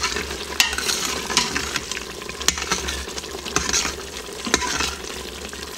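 Metal spoon stirring and scraping through thick sauce in a stainless steel Instant Pot inner pot, with sharp clinks against the pot about half a second, two and a half and four and a half seconds in.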